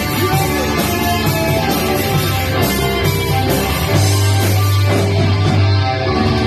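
Rock music with guitar, loud and dense, with a strong low bass note sustained from about four seconds in.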